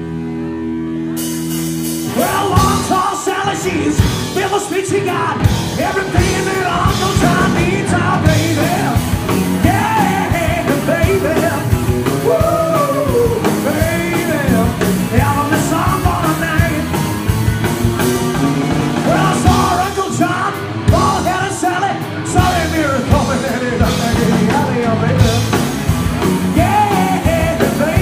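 Live rock-and-roll band with electric guitar, bass and drums. A held chord rings at first, then about two seconds in the full band comes in with a singer.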